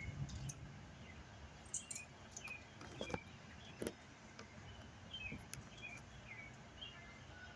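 Small birds chirping faintly, short high notes repeating every half second or so, with a few sharp clicks about three to four seconds in.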